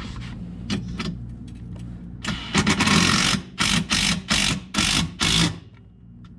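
Cordless power driver running a bolt in, in a series of short loud trigger bursts from about two seconds in, after a low steady hum.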